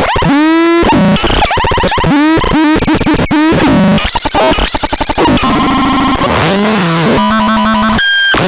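Synthesizer making loud, chaotic electronic noise: pitched tones swooping up and down and breaking off abruptly amid noisy sputters. About halfway through it settles into steadier buzzing tones that jump between pitches, and a high clear tone sounds near the end.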